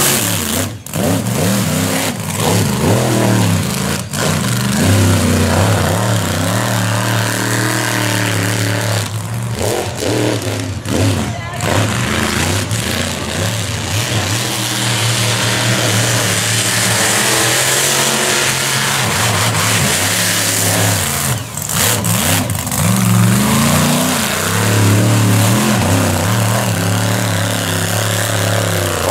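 Off-road race buggy's engine revving hard as it races a dirt track, its pitch climbing and falling again and again with throttle and gear changes, with a few brief dips where the throttle is lifted.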